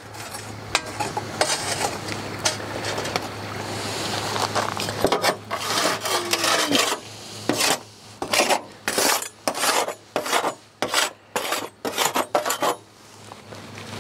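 Metal tongs scraping and rattling charcoal briquettes inside a metal chimney starter, then about a dozen short scrapes and clinks in quick succession as the coals are moved out to go under the Dutch oven.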